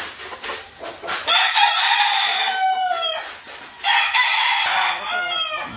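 Gamecock rooster crowing twice, each crow about two seconds long and falling in pitch at its end.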